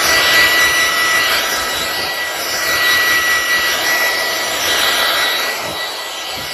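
Bauer 20-volt cordless fast inflater/deflater running as a blower at full speed: a steady high-pitched motor whine over rushing air.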